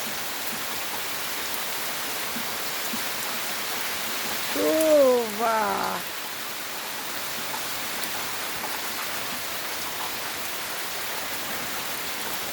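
Heavy rain pouring steadily, with drops pattering close by. About halfway through, a short pitched call in two parts, each rising then falling, rises above the rain.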